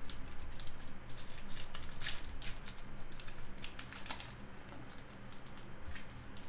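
A Topps Series 2 trading card pack's wrapper being torn open by hand and the cards slid out: crinkling and irregular crackles, busiest in the first couple of seconds and again a little later.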